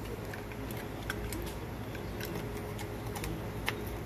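Light plastic clicks and taps as the cover is fitted back onto a two-pole molded-case circuit breaker: a handful of scattered ticks, a few seconds apart.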